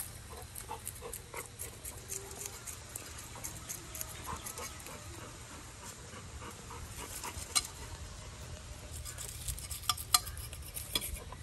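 Irregular light footsteps and scuffs of a person and a dog walking over dry leaves, dirt and concrete, with a few sharper knocks near the end.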